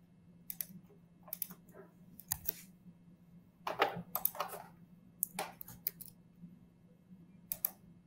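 Computer keyboard keystrokes and mouse clicks in short clusters, loudest about four seconds in, as dimension values are typed into a 3D-design program.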